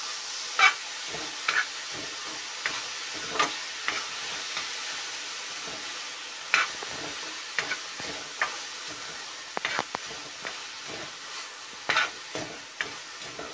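A spoon scrapes and stirs grated carrots and sugar in a metal pan over a steady frying sizzle, with sharp scrapes every second or two. The sugar is being mixed into the fried carrots and is starting to melt and release its water.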